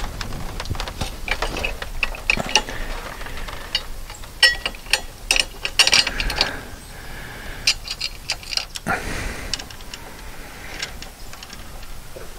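Irregular metallic clicks and clanks of a TV being hooked onto a metal swivel wall bracket, busiest in the middle.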